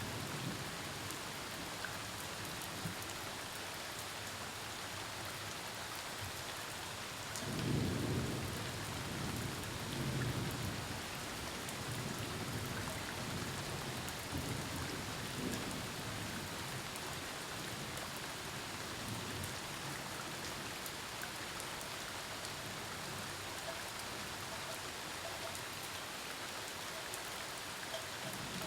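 Steady heavy rain falling, with distant thunder rumbling low, strongest about eight seconds in and again a couple of seconds later.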